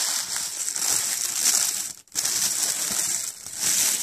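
Tissue paper and packaging crinkling and rustling as they are handled, with a brief break about two seconds in.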